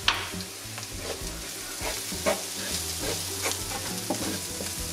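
Diced onion and garlic sizzling in oil with ground spices in a non-stick frying pan, under a steady hiss. A spatula scrapes and taps the pan irregularly as it stirs them.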